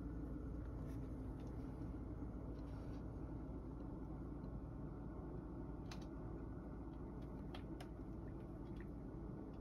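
Steady low hum of a fan heater running, with a few faint clicks about two-thirds of the way through.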